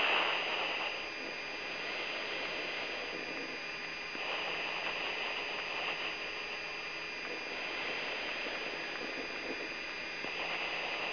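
Steady hiss and electrical hum of an open radio or intercom channel, with two faint, high, steady whining tones running through it and the noise swelling slightly a few times.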